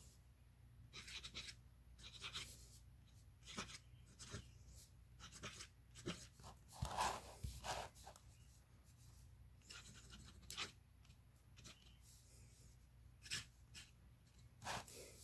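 Nib of a vintage Wahl fountain pen scratching faintly across lined paper in quick, irregular flourished strokes.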